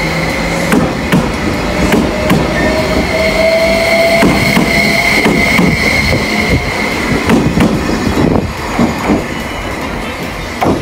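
JR West 273 series electric limited express pulling out, its motors whining in a tone that rises slowly in pitch as it gathers speed, with a steady high whine over it for the first six seconds. The wheels clack irregularly over the rail joints, the clacks loudest between about seven and nine seconds in.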